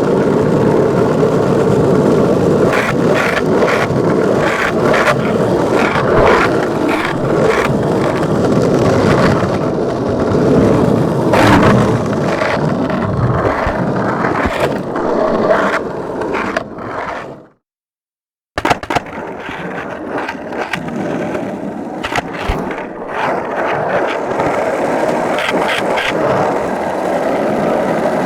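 Skateboard wheels rolling over hard ground, a continuous rumbling scrape broken by frequent sharp clicks and knocks. About 17 seconds in it fades out, and after a second of silence a second ride starts, a little quieter.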